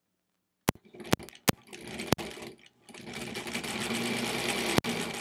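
1938 Kenmore Model 38 electric sewing machine stitching fabric. It starts about a second in and runs briefly with a few sharp clicks, dips for a moment, then runs steadily for nearly two seconds before stopping with a click.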